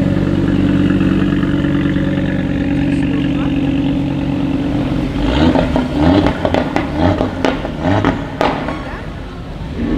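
Audi RS3 8V Sportback's turbocharged 2.5-litre five-cylinder rumbling steadily at low speed. About halfway through it is revved in several short blips, with sharp cracks among them.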